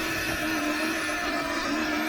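Sur-Ron Ultra Bee electric dirt bike's motor and drivetrain whining steadily under load as it climbs a loose sand dune, the pitch wavering only slightly, over a low rumble.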